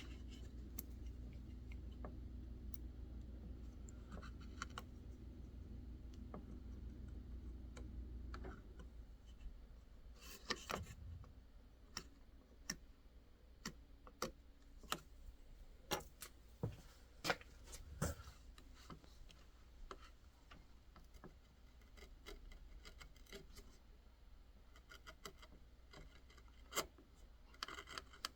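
Carving knife cutting into white birch: scattered short cutting strokes and small clicks, faint. A low hum runs under it for the first eight seconds or so, then stops.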